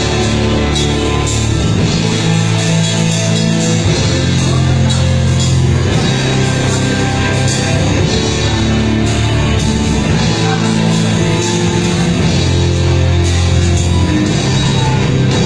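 Loud live heavy rock played by a band, heard from the audience: distorted guitar, bass and drums, with sustained low notes that change every couple of seconds.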